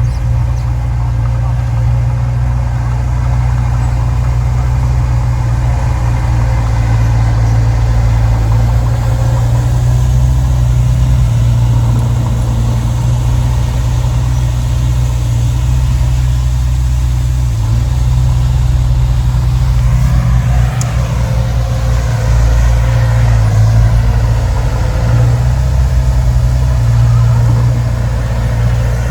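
Heavy earthmoving machinery's diesel engine running steadily, with a whine that rises and falls from about twenty seconds in.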